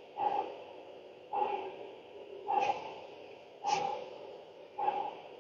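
A person breathing out sharply through the nose in a steady rhythm, five times, about once a second, during a held yoga twist.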